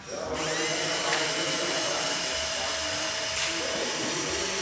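A steady, blower-like hiss with a faint steady whine on top. It starts suddenly and holds evenly.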